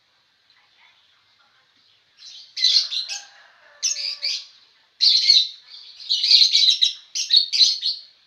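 Long-tailed shrike (cendet) calling loudly in a string of about five short, chattering bursts, starting about two seconds in.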